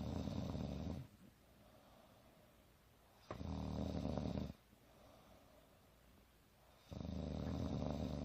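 A woman snoring in her sleep, a snore about every three and a half seconds, each lasting a little over a second. The first is ending about a second in, the second falls in the middle, and the third starts near the end.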